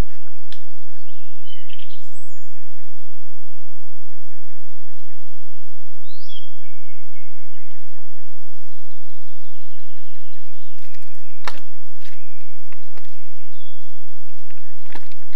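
Wild birds calling in the forest: scattered short chirps and whistles, some gliding down in pitch, over a faint steady hiss. Two sharp clicks stand out, one in the last third and one near the end.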